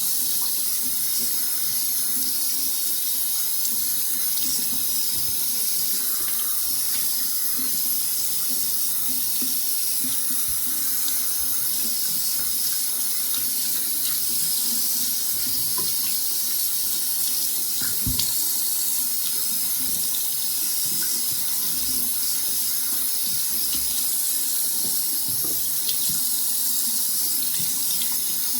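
Tap water running steadily, rinsing soap lather out of hair, with one brief low knock about two-thirds of the way through.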